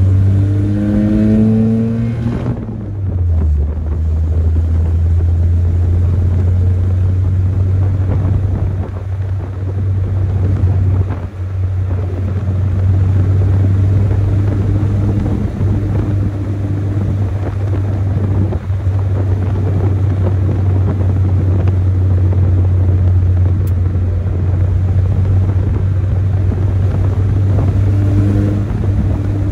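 The stock four-cylinder engine of a manual Chevrolet S10 pickup revs up under hard acceleration, rising in pitch for about two and a half seconds. Then its pitch drops suddenly as the driver shifts up, and it settles into a steady low drone for the rest.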